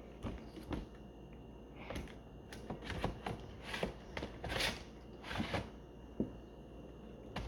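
Irregular clicks, taps and short scrapes of hard plastic being handled as laptop parts are fitted back together, with a few longer scraping sounds about halfway through.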